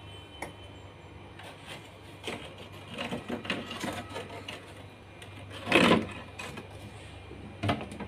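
Kitchen things being handled: a run of small clicks and clatters, a louder thump about six seconds in and another knock near the end, over a steady low hum.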